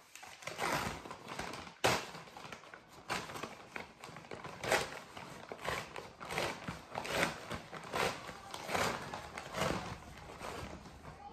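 Hands handling a bare-root plant and its wrapping: irregular rustling and crinkling, about one or two bursts a second.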